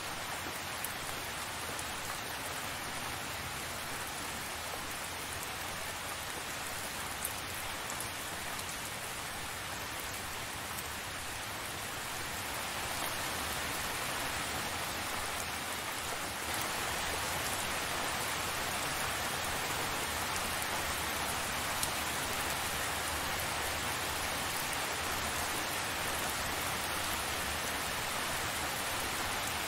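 Steady rain falling, an even hiss of many drops with a few single drops standing out, growing a little louder about halfway through.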